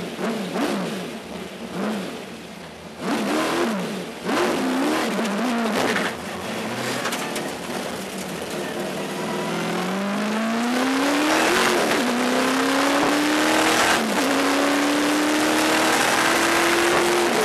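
Pontiac Trans Am race car's 700-plus-horsepower V8 heard from inside the cockpit: short revs rising and falling in quick succession through a corner, then hard acceleration with the engine note climbing, dropping at an upshift, and climbing again.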